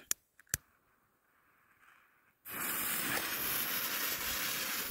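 Two sharp clicks of a jet lighter. About two and a half seconds in, the smoke bomb's fuse catches and a steady hiss starts abruptly.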